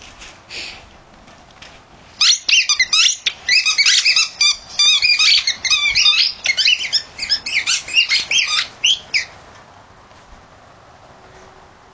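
A dog chewing a squeaky rubber toy ball, making rapid, high-pitched squeaks over and over. The squeaking starts about two seconds in and stops about three-quarters of the way through.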